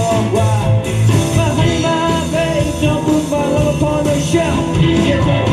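Live rock band playing loudly, with drums, electric guitars and keyboard.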